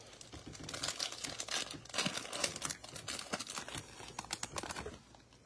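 Foil trading-card pack wrapper crinkling irregularly as it is handled and torn open by hand.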